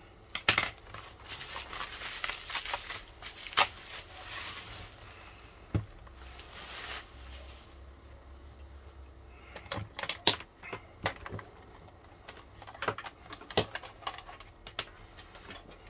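Bubble wrap crackling and rustling as it is pulled off a plastic radio-cassette player. Later come scattered clicks and knocks as the radio is handled and put down on the desk.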